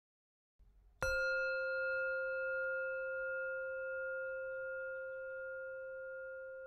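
A singing bowl struck once about a second in, ringing on with a long, slowly fading tone.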